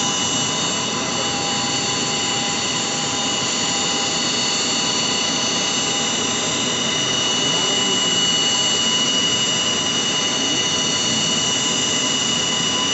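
Jet airliner engines running steadily: a constant loud rush of noise with several high, unchanging whining tones over it.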